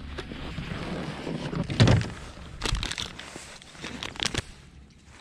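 Plastic bag of soft-plastic fishing baits crinkling and rustling as it is handled, with a few sharp crackles later on. A louder dull thump comes about two seconds in.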